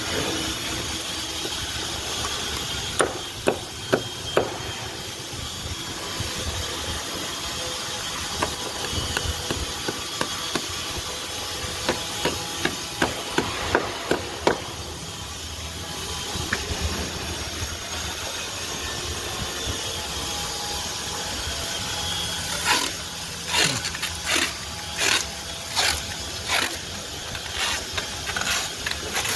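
Sharp knocks and taps from installation work, in groups: four about three seconds in, a scattered run in the middle, and a faster, more regular run near the end, over a steady hiss.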